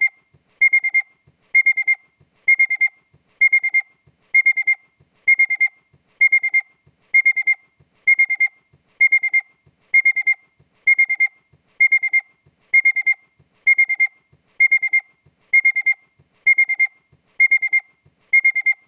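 Honda car's electronic warning beeper sounding a high-pitched beep a little more than once a second, repeating evenly without change.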